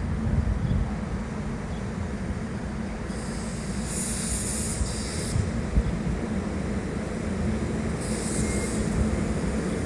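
SEPTA Silverliner IV electric multiple-unit commuter train approaching along the track with a steady low rumble and hum. A high hiss comes in twice, around the middle and near the end.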